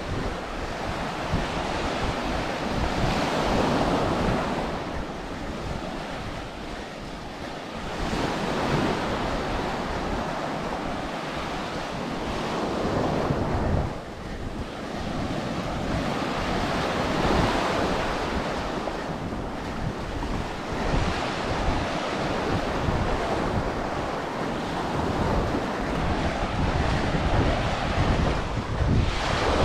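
Ocean surf washing onto a beach, swelling and fading every four to five seconds, with wind buffeting the microphone.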